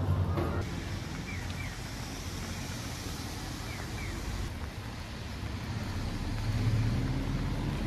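Outdoor street ambience: a steady background rush with a few faint short chirps in the first half, and a low rumble that swells near the end.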